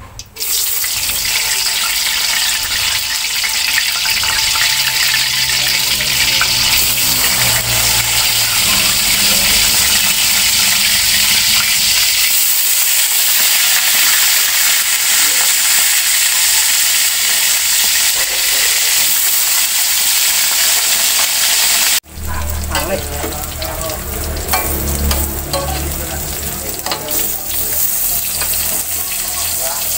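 Tofu frying in hot oil in a steel wok. A loud, steady sizzle starts suddenly just after the opening, as the tofu goes into the oil. It breaks off about 22 seconds in and picks up again with crackling and the clatter of a metal spatula stirring and scraping in the wok.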